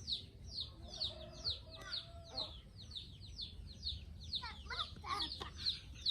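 Chickens: a steady run of quick, high, falling chirps, about three to four a second, with a few lower clucks about four and a half seconds in.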